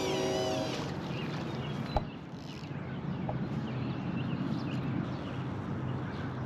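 A train horn's held chord ends shortly after the start, leaving a steady low rumble. One sharp click comes about two seconds in, and faint bird chirps are heard.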